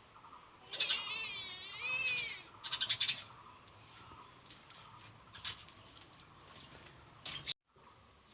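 A cat meows once, a long wavering call lasting over a second, about a second in, followed by a brief rapid clicking and then a few faint ticks.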